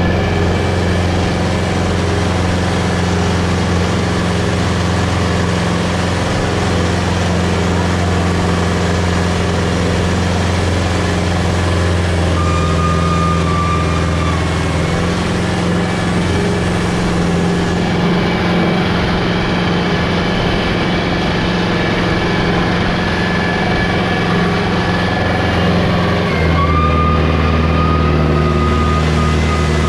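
HMT 6522 tractor's diesel engine running hard under load as it drags a disc harrow through soft soil. The engine note shifts a couple of times and drops noticeably near the end.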